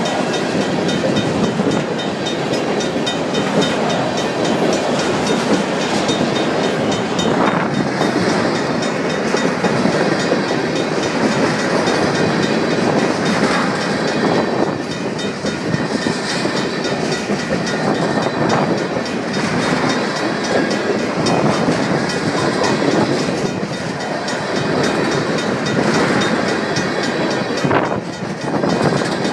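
Ethanol tank cars of a freight train rolling steadily past, a continuous rumble of steel wheels on the rails with occasional louder clacks.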